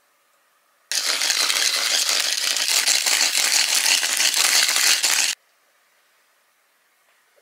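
Pepper mill grinding black pepper: a loud, dense crackling grind that starts abruptly about a second in and stops abruptly about four seconds later.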